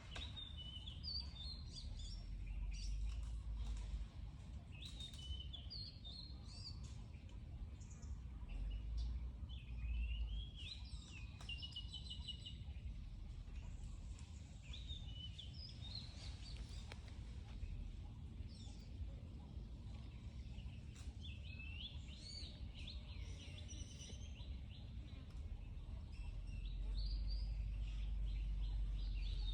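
Outdoor ambience of scattered short, high chirping animal calls over a steady low rumble, the rumble growing louder near the end.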